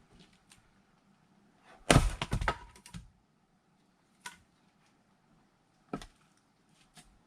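An axe striking a log and the firewood splitting, heard as a quick cluster of loud knocks and cracks about two seconds in. A few single lighter wooden knocks follow.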